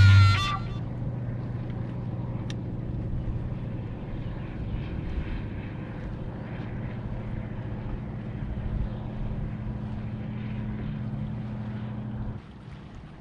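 Electric bow-mounted trolling motor running with a steady hum, then cutting off suddenly near the end.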